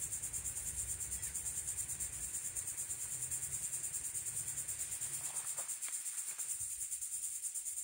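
Steady, high-pitched insect chorus with a rapid, even pulse.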